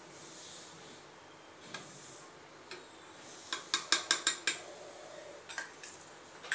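Plastic spoon clicking against the sides of a stainless steel bowl while stirring soup: a quick run of sharp clicks a little past the middle, then a few more near the end.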